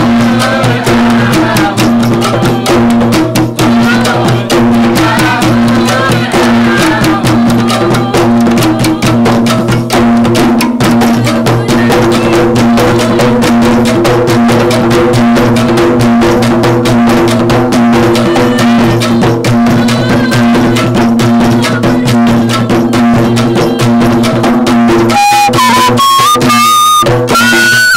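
Teganing, a Gayo bamboo tube zither, struck in a fast, dense rhythm over a steady low hum. Clearer high melodic notes come in near the end.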